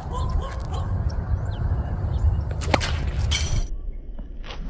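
A paracord sling is whipped and releases a concrete sling bullet, with a sharp crack and a short whoosh about three seconds in. A sharp impact follows right at the end as the bullet strikes the target. Wind rumbles on the microphone throughout the first part.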